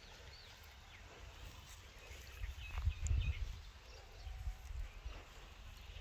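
Faint bird chirps over outdoor ambience, with a low rumble that swells from about two seconds in and fades out around five seconds.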